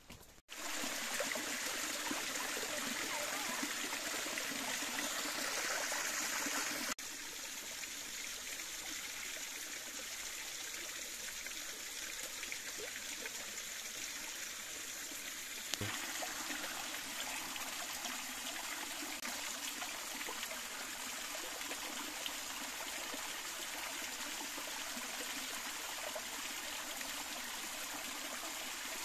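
Steady rush of a small forest stream and waterfall running over rocks. It starts abruptly about half a second in, drops a little in level around seven seconds in, and rises slightly again around sixteen seconds.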